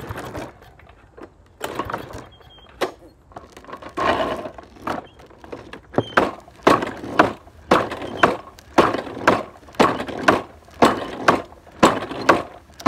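Gas push lawnmower being worked on without the engine catching: a series of knocks and rattles, scattered at first, then coming about twice a second from midway.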